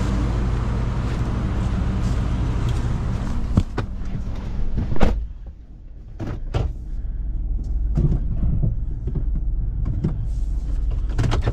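Truck engine idling steadily, with a series of sharp clunks and knocks, the loudest about five seconds in, as the vehicle sits pushed into place against its mount.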